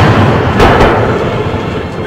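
Large aerial firework shells bursting: a continuous rumble of booms, with two sharp reports just over half a second in, one right after the other.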